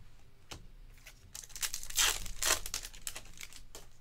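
Plastic wrapper of a trading-card pack crinkling and tearing open in a loud burst of crackle lasting about a second and a half in the middle, with light ticks of cards being handled before and after.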